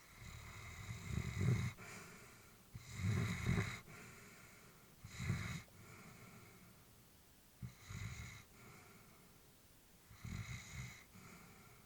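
Elderly Labrador retriever breathing in her sleep: about five unevenly spaced breaths, each a low snore with a hiss.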